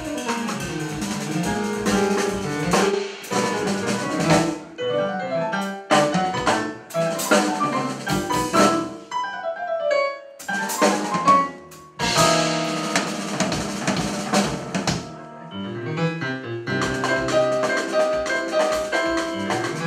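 Live jazz trio playing an uptempo tune: a stage keyboard plays runs and chords over a drum kit with cymbals.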